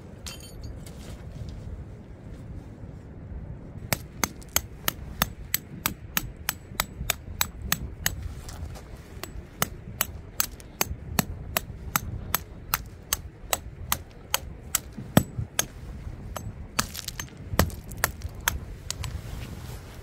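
A hammer driving a tent peg into gravel: a steady run of sharp, ringing strikes, about three a second. It starts about four seconds in and stops near the end, with one especially loud hit about three quarters of the way through.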